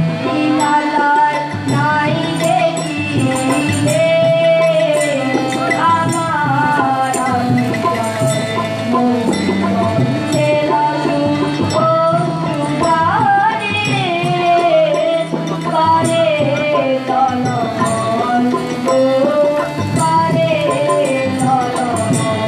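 Live song: a woman singing with a gliding, ornamented melody over a harmonium, with tabla and small hand percussion keeping a steady beat.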